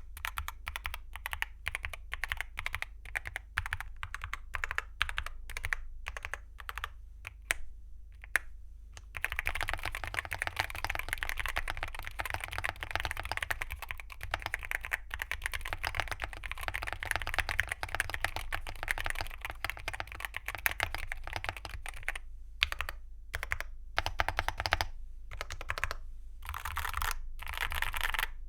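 Typing on a stock Cidoo C75 hall-effect keyboard with Gateron KS-20U magnetic switches and Cherry-profile dye-sub PBT keycaps. Separate keystrokes for the first several seconds, then fast continuous typing from about nine seconds in, breaking into short bursts with pauses near the end.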